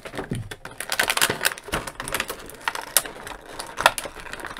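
Clear plastic blister tray of action-figure packaging crinkling and crackling as it is handled, a rapid, irregular run of sharp crackles.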